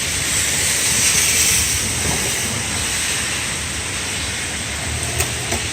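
Steady rush of heavy thunderstorm rain pouring down, with a few faint ticks about five seconds in.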